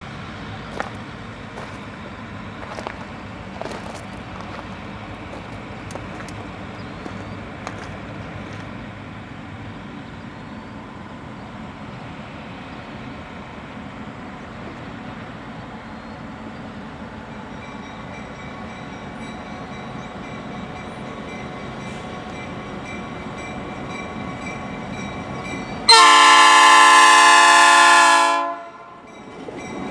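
Approaching diesel freight train: a steady low rumble, then near the end one long, loud blast of the locomotive's air horn, a chord of several notes lasting about two and a half seconds, sounded for a road grade crossing.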